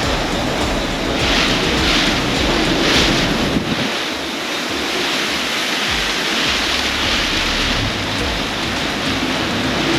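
Typhoon storm: a steady, loud roar of driving rain and wind, with gusts surging every second or so, and wind buffeting the microphone with a low rumble that eases for about two seconds in the middle.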